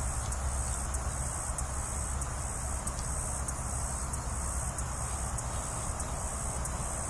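Steady outdoor background: insects buzzing in a high band with faint irregular ticks, over a low rumble.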